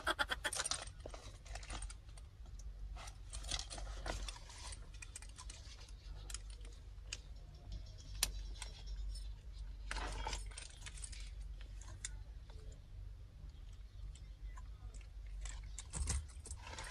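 Small metal clinks and clicks of a nylon shoulder bag's strap hardware, the swivel snap hook and ring knocking together as the strap is clipped on by hand, with light rustling of the nylon. The clicks come scattered, with a sharper one about halfway through.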